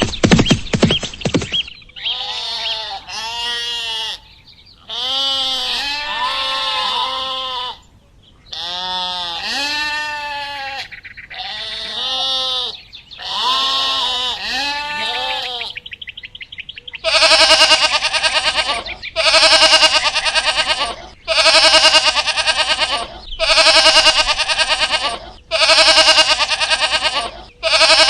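Livestock bleating: a run of short calls with wavering, arching pitch, then, a little past the middle, about six longer and louder bleats roughly every two seconds. It opens with a brief dense clatter.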